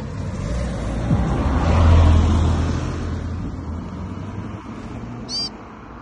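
A vehicle passing: a low rumble that swells to its loudest about two seconds in, then slowly fades. Near the end comes a single short, high bird chirp.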